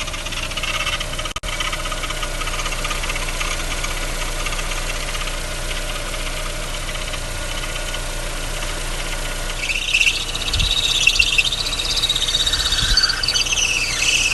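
Fiat E.torQ Evo 1.8 engine running with a noise at the accessory belt. From about ten seconds in, a louder, uneven high-pitched chirping joins the steady running sound. It comes from the belt-driven water pump below the alternator: the pump is leaking and its bearings are seizing, so it sometimes sticks and the belt drags on it.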